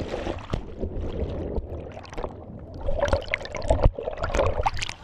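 River water splashing and rushing around a swamped raft, with irregular knocks and bumps; the louder stretch comes near the end.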